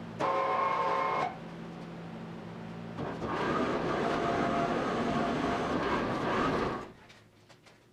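A motor running with a steady hum and an intermittent whine. About three seconds in it turns into a louder, rougher noise, then cuts off suddenly near the end.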